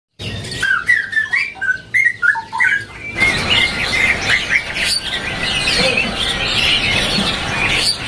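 Caged songbirds singing: a run of clear, separate whistled phrases for about three seconds, then a sudden change to a denser stream of chirps and twittering over a busy background hubbub.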